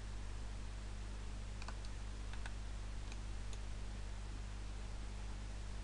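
A few faint, scattered computer mouse clicks over a steady low hum and hiss on the microphone.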